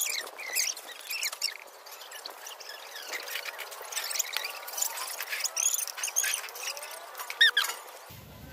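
Small birds chirping: short, high-pitched calls that sweep up and down, repeated irregularly, the loudest a falling chirp near the end.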